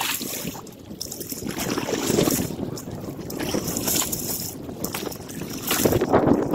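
Wind buffeting the microphone in gusts over choppy water slapping around a canoe.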